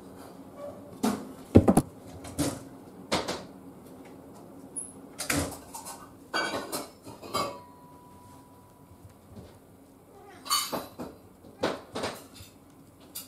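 An irregular series of sharp clacks and knocks, about a dozen, with the loudest about one and a half seconds in.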